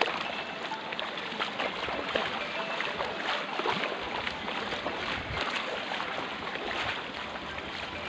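Steady rush of flowing river water, with many small ticks and splashes through it.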